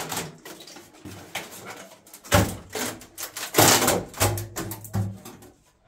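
Irregular knocking, clattering and scraping, with two louder noisy bursts about two and three and a half seconds in, and a few brief voice sounds.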